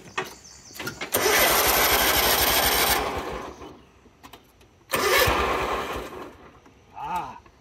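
Kubota Z421 zero-turn mower's engine cranked twice, a longer try of about two seconds and then a shorter one, each dying away without the engine catching.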